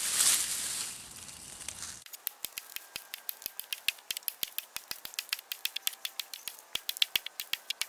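Hatchet chopping into a felled tree trunk: a brief rustling hiss, then from about two seconds in a rapid run of short, sharp chopping knocks, about six a second.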